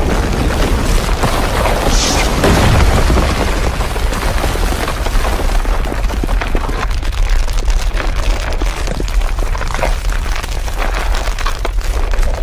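A room shaking in an earthquake: a continuous low rumble with many small rattles and creaks, loudest about two seconds in.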